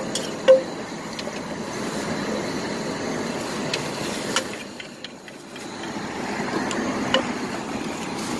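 A wooden pestle strikes a clay mortar twice in the first half-second, the last strokes of pounding papaya salad. After that comes a steady hum of street traffic, with a few light clicks of a spoon against the mortar.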